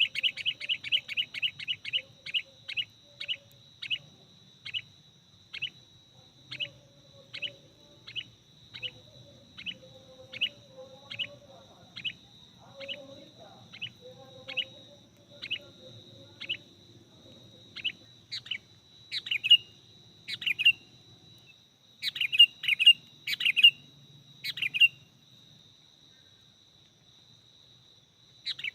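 Sooty-headed bulbul (kutilang) calls: sharp chirp notes that repeat fast at first and then slow to about one a second, followed by bursts of several chirps close together. A steady high-pitched whine runs underneath.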